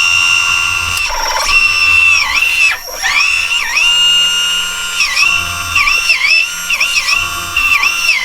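High electric whine of the Kabolite K963 RC hydraulic bulldozer's motor and hydraulic pump, holding a steady pitch and then dipping and recovering again and again, more often in the second half, as the machine is driven and its controls are worked.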